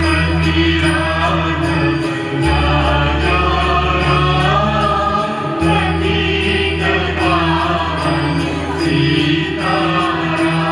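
Music: a song with voices over sustained low notes that drop out briefly twice.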